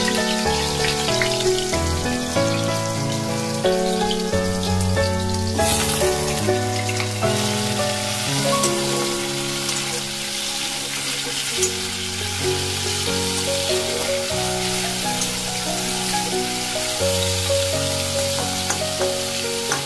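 Potato wedges frying in hot ghee with cumin seeds in a kadhai, sizzling steadily, under background music with a slow melody.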